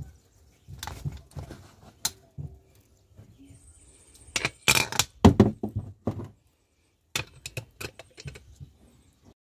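Small metal clicks and taps as a pressure cooker's whistle weight is handled and fitted onto the vent pipe of its stainless-steel lid, with a cluster of louder knocks about five seconds in.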